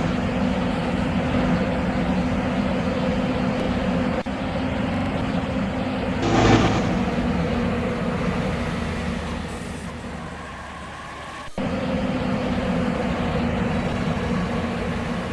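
Heavy road vehicle engine running steadily, most likely a bus, over traffic noise. A brief louder burst comes about six seconds in. The sound dips near the middle and jumps back suddenly a little before the twelve-second mark.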